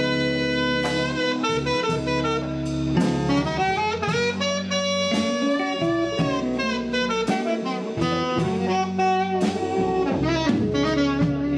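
Saxophone playing a jazzy melodic line of held and moving notes over a live band, with drums hitting underneath.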